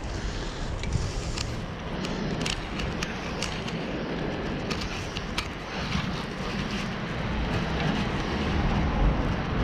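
Wind and road rumble from a camera riding on a moving vehicle down an asphalt street, with frequent small clicks and rattles from the bumpy surface.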